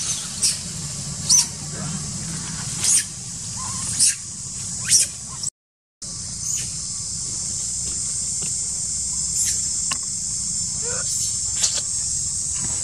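A newborn long-tailed macaque giving short, high-pitched squeaks, roughly one a second. After a brief break about halfway, a steady high buzz of insects takes over, with a few more squeaks.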